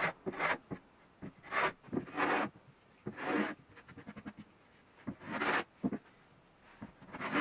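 No. 4 hand plane taking shavings off a plywood edge: about six short, irregularly spaced strokes, each a brief scraping swish.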